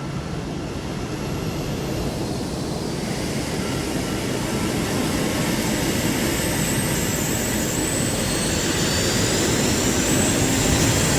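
Fighter jet engines roaring, growing steadily louder, with a high turbine whine over the noise.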